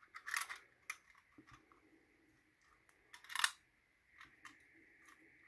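Light clicks and knocks of a 3D-printed plastic slider and its metal spring and bolt being handled and fitted together, with one louder scraping rattle about three and a half seconds in.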